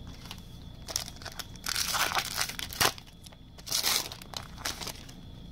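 A hockey trading-card pack's plastic wrapper being torn open and crinkled, in several short bursts through the middle.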